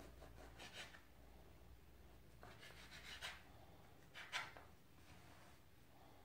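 Knife cutting the crust off the edge of a white-bread sandwich: a few faint strokes, about a second in, around three seconds, and once more just past four seconds.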